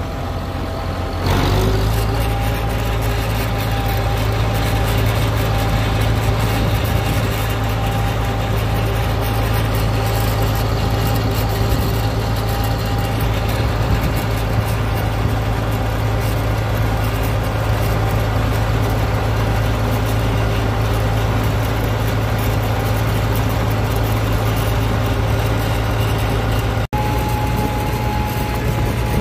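Farm tractor engine running steadily while driving down the road, heard close up from the driver's seat. The sound cuts out for an instant near the end.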